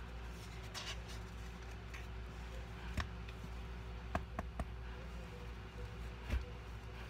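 Handling noise: a soft rustle about a second in, then a few sharp light clicks or taps, one about three seconds in, three in quick succession a second later, and one more near the end, over a steady faint hum.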